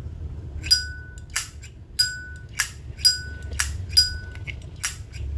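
Zippo 1941-replica lighter lid being flicked open with its metallic ching and snapped shut, over and over, about four open-and-close cycles.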